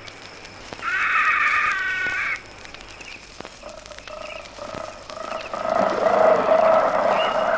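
Wild animal calls: one call with steady, evenly stacked pitches about a second in, lasting about a second and a half, then a lower, rough call that builds louder from about halfway through.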